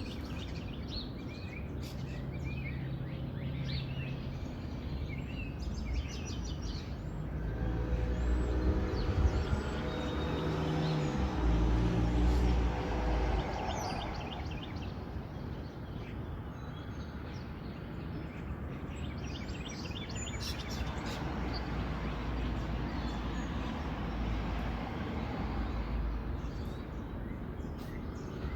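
Outdoor ambience of small birds chirping and calling in short scattered notes, over a steady low rumble that swells louder for a few seconds near the middle.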